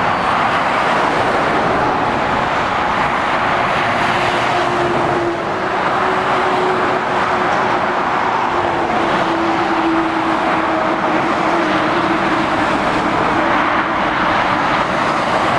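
Steady motorway traffic: tyre noise and diesel engines of lorries and cars passing below, with a faint low hum coming and going in the middle and later part.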